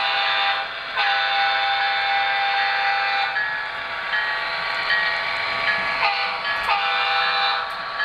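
Model train locomotive's sound system blowing its multi-note diesel horn in a string of long blasts with short breaks between them, over a steady running rumble.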